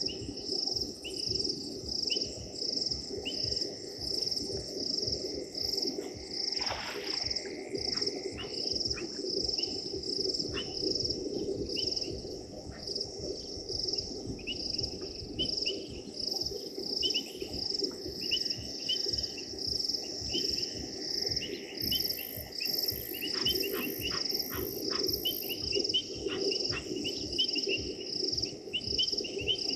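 Night chorus of crickets chirping steadily, about two chirps a second, with frogs calling in the background. Short sharp calls come in irregular runs and grow busier in the second half.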